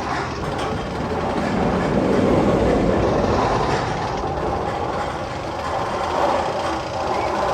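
Steady rumble and clatter of a train rolling on rails, swelling a little two to three seconds in.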